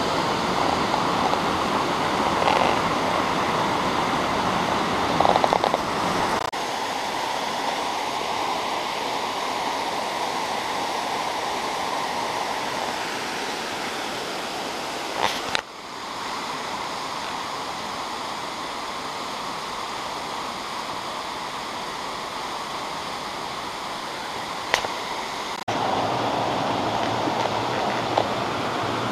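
Waterfall cascading over rocks: a steady rush of falling water. Its sound changes abruptly three times, with a few short clicks.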